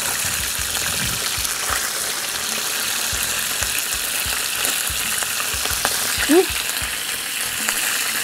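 Mackerel frying in a nonstick pan: a steady sizzle with constant spattering pops and crackles. A brief rising squeak about six seconds in.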